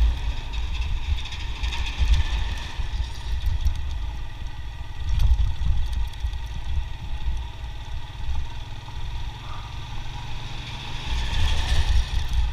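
Motorcycle engine running steadily on a rough gravel road, over a heavy low rumble of wind and road noise that swells and fades several times.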